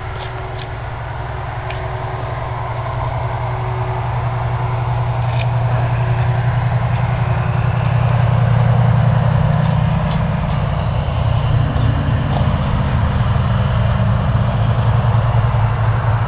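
A steady low rumble of an idling engine that swells louder toward the middle and stays loud, with a few faint clicks over it.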